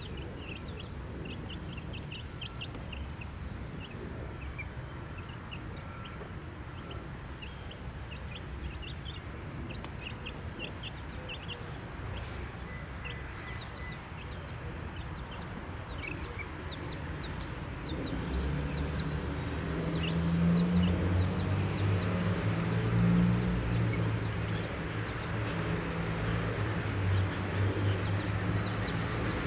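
Baby chicks peeping, many short high cheeps over a steady low rumble. About two-thirds of the way in, a louder low sound comes in and stays.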